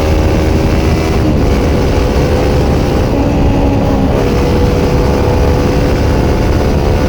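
Kawasaki Ninja 400 parallel-twin engine through a Yoshimura slip-on exhaust, running steadily at highway speed with a low rush of wind and road noise beneath it. The engine note shifts slightly about a second in and again around four seconds.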